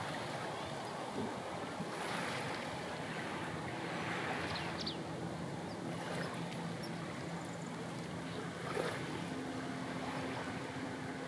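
Steady wash of wind and small waves at the sea's edge, with a faint low steady hum under it, like a distant boat motor. A few brief high chirps come in about four to five seconds in.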